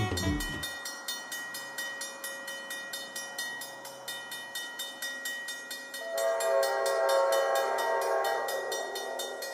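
Railroad grade-crossing bell ringing with rapid, even strikes. From about six seconds in, the multi-note horn of the approaching Amtrak locomotive sounds for about three seconds, louder than the bell.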